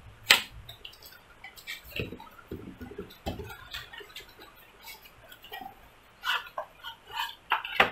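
Small cardboard box being opened by hand and its contents pulled out: irregular clicks, scrapes and rustles of cardboard and packaging, with a sharp click about a third of a second in and a busier run of clicks near the end.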